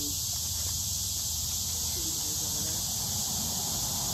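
Steady high insect chorus drone with a low rumble underneath.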